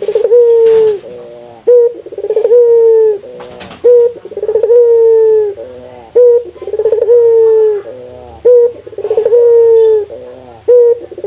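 Burung puter (domestic ringneck dove) cooing over and over: each call is a short rolling note followed by a long held low coo, repeating about every two seconds. A couple of sharp clicks come through between calls.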